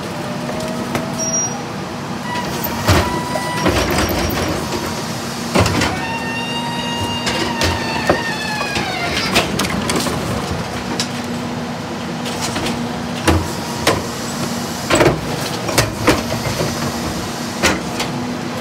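Heil DuraPack 5000 rear-loader garbage truck on a Freightliner M2 106 running with its hydraulics working: a steady hum under gliding hydraulic whines as the tipper and packer cycle. Repeated sharp knocks of plastic carts banging on the tipper come through, thickest near the end.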